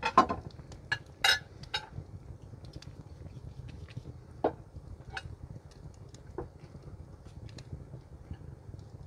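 Dishes and cutlery clinking and knocking: a few sharp, loud knocks in the first two seconds, then scattered light clicks, over a low steady rumble.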